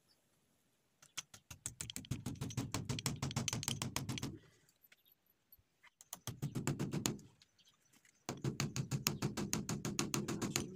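A hammer driving nails into a window frame to hold an insect mesh, in quick light taps several a second. The taps come in three runs: one starting about a second in and lasting some three seconds, a short one around six seconds, and a last one from about eight seconds on.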